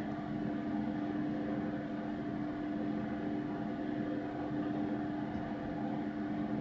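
A computer running steadily under rendering load: an even whirr of its cooling fans with a constant low-pitched hum underneath.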